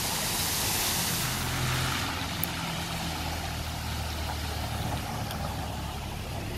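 Cars driving slowly through a flooded street: a low, steady engine hum under the hiss of tyres pushing through shallow water, with the splashing hiss loudest in the first second or so.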